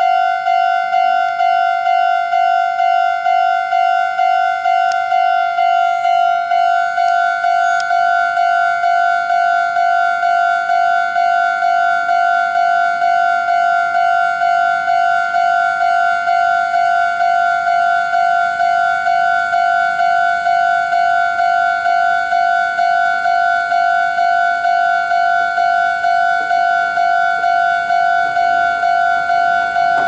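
Japanese railway level-crossing warning bell ringing: an electronic ding repeating evenly, about one and a half times a second, warning that a train is approaching and the barriers are down.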